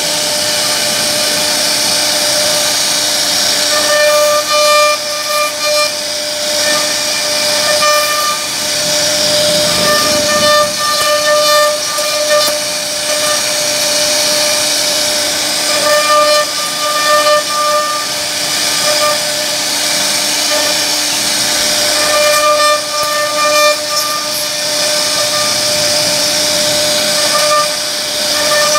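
CNC router spindle running with a steady high-pitched hiss as its bit carves a relief pattern into a wooden panel. A ringing, whistle-like tone comes and goes every few seconds, with small spikes in level as the cutter bites into the wood.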